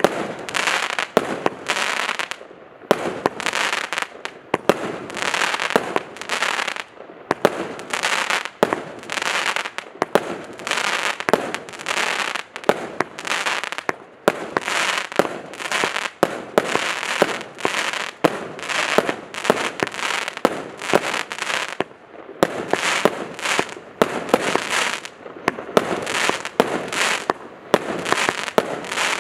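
A 280-shot compound consumer fireworks cake firing its shots one after another, about one to two a second. Each shot is a sharp bang that trails off into a short noisy burst.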